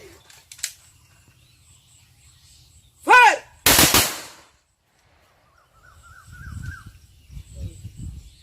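A drill command is shouted, then about half a second later rifles fire together in one loud volley that fades over about a second: a military gun salute.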